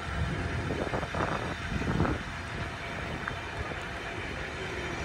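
Pullman carriages of a passenger train rolling past on the track: a steady rumble and rush of wheels on the rails, with a couple of louder swells between one and two seconds in.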